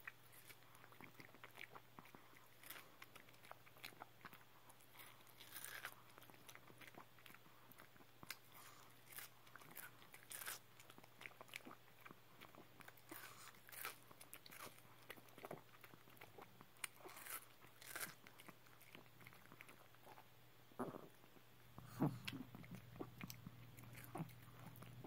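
A Pomeranian biting and chewing a wedge of watermelon held out by hand: faint, irregular wet crunches and mouth smacks, a few louder near the end.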